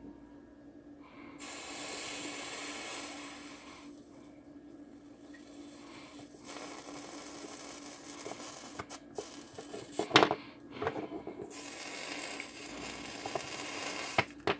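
Flux sizzling under a hot soldering iron pressed on copper desoldering wick over a circuit board connector's solder joints, as the wick draws the solder off. It sizzles in two spells, a short one about a second and a half in and a longer one from about halfway through, with a few light clicks around two-thirds of the way.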